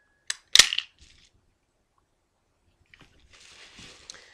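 Walther PPS 9mm pistol being worked by hand with dummy rounds during an administrative reload: two sharp metallic clicks about a third of a second apart near the start. Near the end a faint papery rustle and one more light click.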